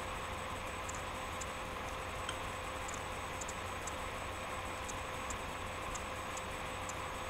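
Steady background hum and hiss with two faint steady tones, and faint, irregular light ticks roughly once or twice a second.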